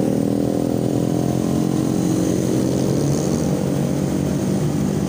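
Small Honda motor scooter engine running steadily as the scooter pulls away from a standstill, heard from the rider's seat, with other motorcycles in traffic around it.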